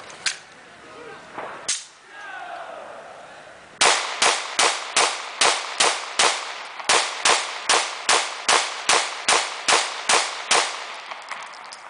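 Caracal F 9mm semi-automatic pistol fired in a steady rapid string of about seventeen shots, roughly two and a half a second, with one short break partway through. The gun cycles without a stoppage. Two single bangs come in the first two seconds before the string.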